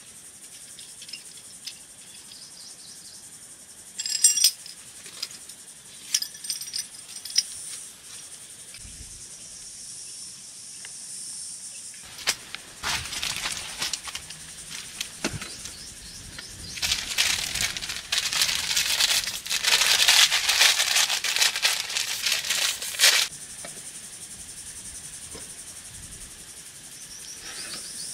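A steady high-pitched insect drone, broken by short bursts of rustling and clicking, with a longer, louder stretch of rustling past the middle.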